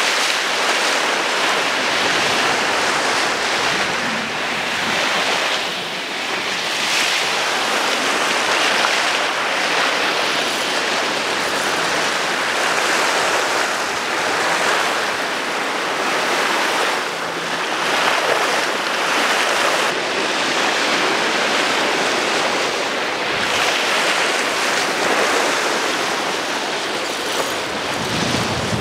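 Water rushing and splashing along the hull of a sailing yacht under way, with wind on the microphone; the wash swells and eases unevenly.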